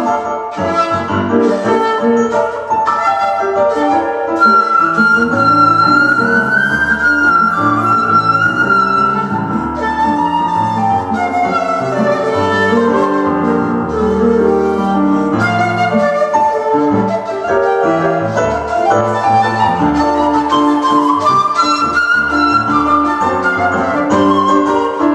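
Seven-hole 1.6-shaku shakuhachi playing a slow, held melody with gliding bends in pitch, over piano accompaniment.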